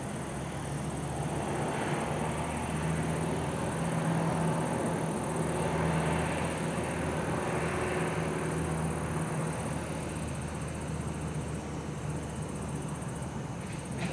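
Distant road traffic heard from above: a vehicle's rumble swells to a peak about four to six seconds in and slowly fades, over a steady low hum.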